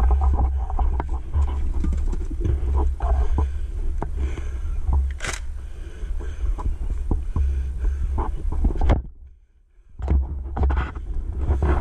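Wind buffeting and handling rumble on a body-worn action camera's microphone, with rustling and scattered knocks of a player moving. The sound drops out for about a second around nine seconds in, then resumes.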